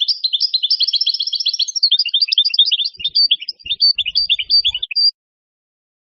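European goldfinch singing a fast twittering song of quick high notes, breaking into a few separate notes and a short clear whistle before it stops abruptly about five seconds in.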